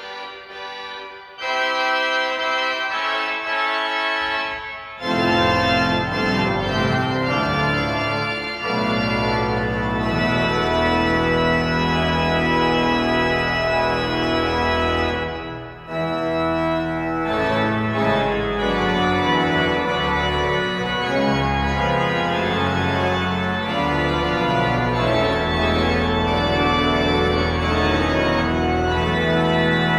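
Church organ playing sustained chords. For the first few seconds only the higher notes sound; about five seconds in, deep bass notes join for full organ, with a short break just before halfway.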